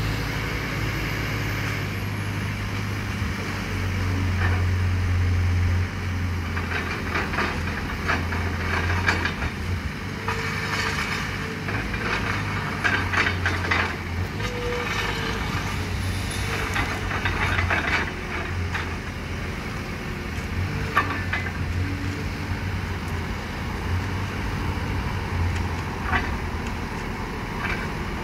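Engine of a small wheeled construction machine running steadily and working harder several times as its arm moves, with scattered metal knocks and clatter from the bucket and arm.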